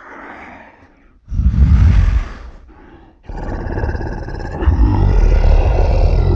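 Zilla Jr.'s monster roar sound effects: a faint short call, then a loud roar lasting about a second, then a long roar with several pitches layered together starting about three seconds in.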